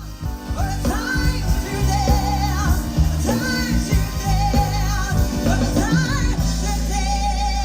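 Neo-soul band playing live: a female voice singing with wide vibrato over bass, drums and piano/keyboards. Near the end the drums stop and a low bass note is held while the voice sustains a note.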